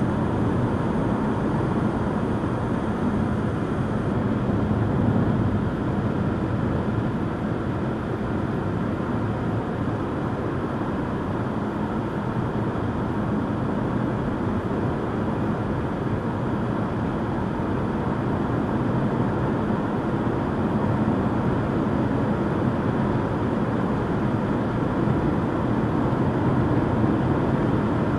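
Steady road noise of a car driving at a constant speed, heard from inside the cabin: a continuous rumble and hiss of tyres and engine with no changes.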